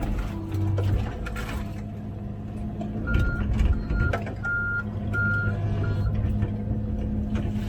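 Komatsu PC16 mini excavator's diesel engine running steadily under digging work. From about three seconds in, a high-pitched back-up alarm beeps four times, with a sharp metal clank in the middle of the beeps.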